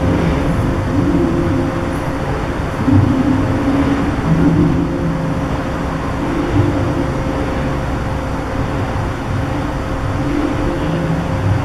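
Large shake table running a simulated earthquake under a test house on sliding seismic isolators: a loud, steady mechanical rumble with a constant hum and lower tones that come and go as the table and house shift.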